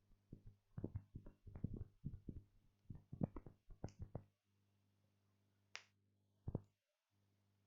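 A flurry of faint, quick clicks and taps for about four seconds, then two single clicks near the end, over a faint low hum.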